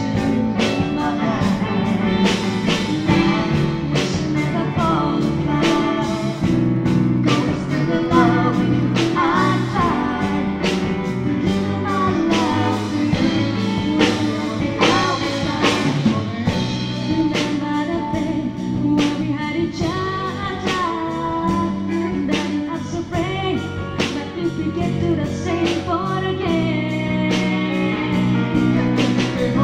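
Live band playing a pop-rock ballad, with drums keeping a steady beat under a melody that bends in pitch.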